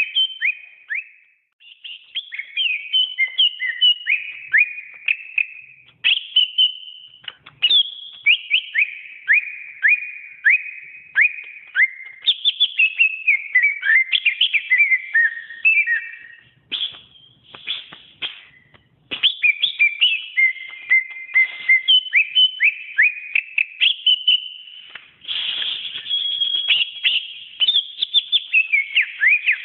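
Cucak ijo (green leafbird) singing: a rapid, varied run of sharp whistled notes and trills, many quickly falling in pitch, broken by short pauses about a second in and near the middle.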